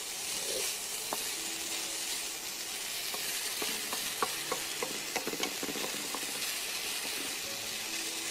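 Rice and sausage pulao sizzling steadily in a nonstick frying pan while it is stirred with a wooden spatula, with light scrapes and taps of the spatula against the pan between about three and six seconds in.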